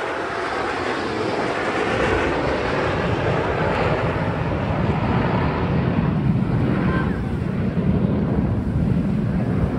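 Jet roar from Blue Angels F/A-18 Super Hornets flying past, a broad rush of noise whose low rumble grows stronger over the second half.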